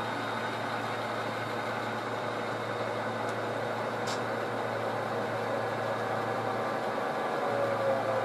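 Steady diesel-engine drone from an HO scale model diesel locomotive while it moves cars during yard switching, with a short tick about four seconds in.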